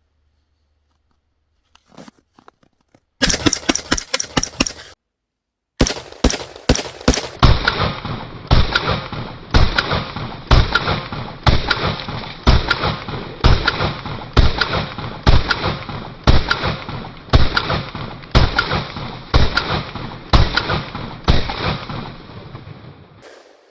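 Semi-automatic rifle with a 3D-printed PLA lower firing: a quick string of shots about three seconds in, a short pause, then steady shots roughly one a second until near the end. It is the last of a 60-round drum, and the rifle cycles every round without a stoppage in the freezing cold.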